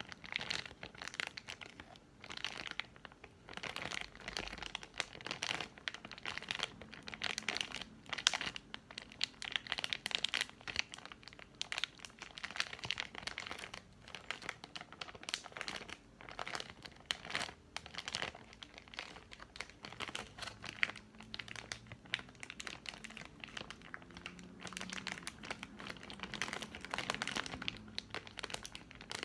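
Plastic Airheads candy packaging being crinkled and crumpled by hand, in irregular bursts of crackling with short quieter pauses.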